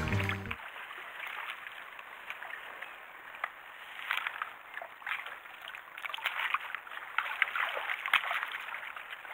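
Seawater sloshing and splashing as a landing net holding a squid is swished back and forth in the sea, with irregular small splashes, rinsing squid ink out of the mesh.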